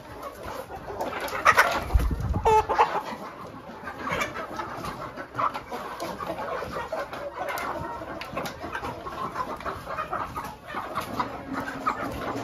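A flock of domestic chickens clucking continuously in a coop, with a bump and a short low rumble about two seconds in.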